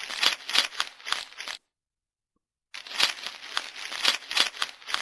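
Electronic toy playing a crackling, crunching sound effect through its small speaker, in two bursts of about two and a half seconds with a second of dead silence between them.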